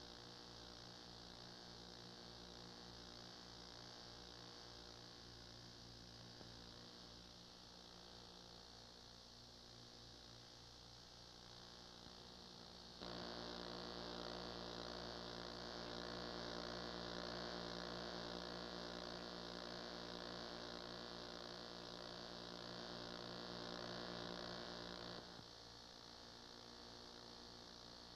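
Steady electrical mains hum with buzz and hiss, and no other sound. It steps abruptly louder about halfway through and drops back again near the end.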